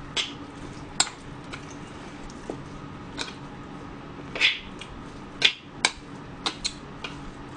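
Metal spoon stirring al-bap in an earthenware ttukbaegi, with scattered scrapes and sharp clinks against the pot, the loudest about a second in and about five and a half seconds in. A low steady hum runs underneath.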